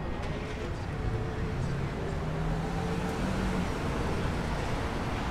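Street traffic: a steady low rumble of cars on the road, with one engine's tone standing out for a couple of seconds mid-way.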